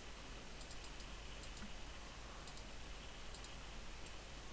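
Faint computer mouse clicks, a handful of quick pairs spread across a few seconds, over a steady low hiss.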